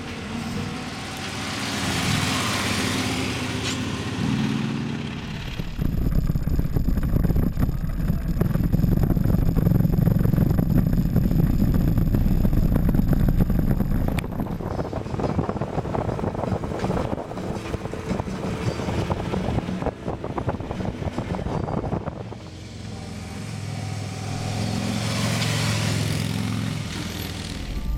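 Big V-twin touring motorcycles, a Harley-Davidson Ultra Classic and a Victory Vision, riding by. The engine sound swells and fades as a bike passes, about two seconds in and again near the end, with a louder, steadier engine rumble in between.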